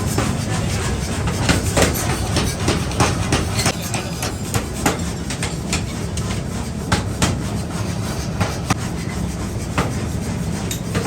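Irregular hammer blows on metal, sharp knocks a fraction of a second to a second apart, over a steady low rumble of workshop machinery.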